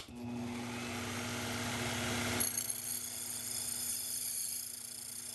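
A switch clicks and a Sherline CNC mill starts up, its motor running with a steady hum. About two and a half seconds in, the sound changes as several high, steady whining tones take over.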